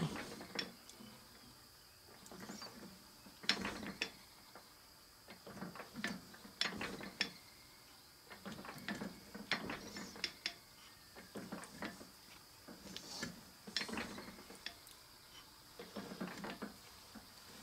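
Lathe form tool being stroked along a steel hub, shaping spline teeth. Each pass is a short group of scraping and clicking sounds from the cut and the carriage, and the passes repeat at uneven intervals of a second or two.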